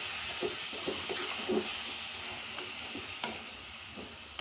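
A ladle stirring and scraping a thick, sizzling mix of moong dal flour, sugar and ghee in a kadai, with a steady frying hiss under short scraping strokes. The sugar is melting into the ghee-roasted dal as the halwa cooks.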